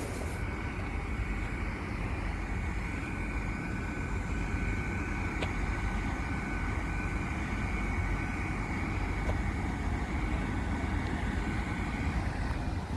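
TransPennine Express Class 802 bi-mode train running on its underfloor diesel engines as it moves off slowly: a steady low rumble with a faint, even whine over it.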